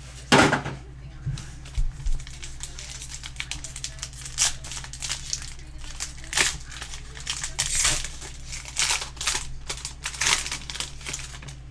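Foil trading-card pack wrapper being torn open and crinkled by hand, an irregular crackling throughout. A sharp knock about half a second in is the loudest moment.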